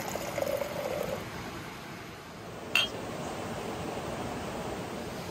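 Steady rush of a small forest stream, with a single sharp click a little under three seconds in.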